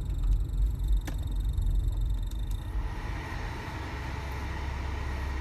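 BMW E46 air conditioning making an unexplained odd noise over a steady low rumble. A faint high whine stops about halfway through, and a steady hiss comes in.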